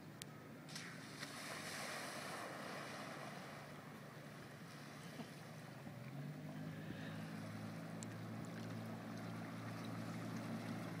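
An Amphicar driving off the ramp into the lake with a rush of splashing water, then its engine running steadily as it motors through the water. The engine note steps up slightly about six seconds in.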